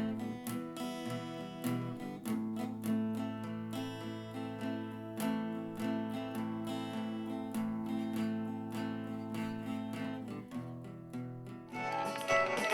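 Background music of plucked acoustic guitar, picked notes over steady low tones; about twelve seconds in, a fuller, louder passage comes in.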